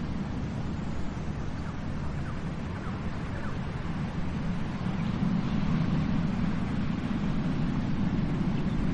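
Ocean waves washing onto a beach: a steady low wash of surf that swells louder about five seconds in.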